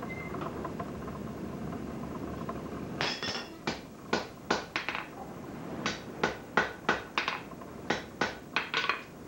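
Hand hammer striking a welding-hot scarfed joint on the anvil to set a forge weld joining a handle to a shaft. About three seconds in come quick ringing blows, about three a second, in short runs with brief pauses. Before the blows there is a steady rushing noise.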